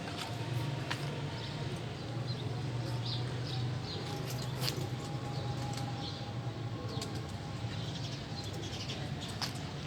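Lovebirds chirping in short, scattered high calls over a steady low hum, with a few sharp clicks.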